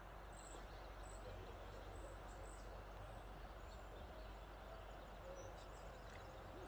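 Quiet riverside ambience: a steady soft hiss with a low rumble under it, and scattered short, high chirps.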